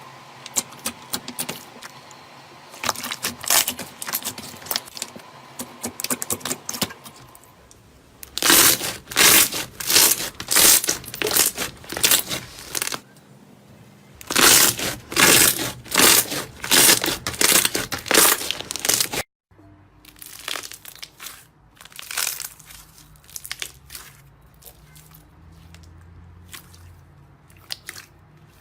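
Close-miked crackling and crunching as a crunchy slime-type material is squeezed and crushed by hand, in quick repeated strokes. The sound is loudest in two stretches through the middle, breaks off abruptly about two-thirds through, and then goes on as quieter, sparser crackles.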